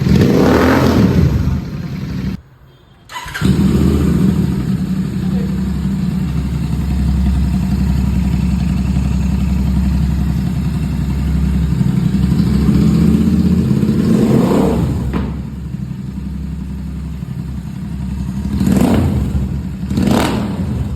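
Royal Enfield Continental GT 650 parallel-twin engine running through open Red Rooster Performance aftermarket exhausts with the baffles out, a deep steady idle. The throttle is blipped in short revs near the start, around two-thirds of the way in and twice near the end.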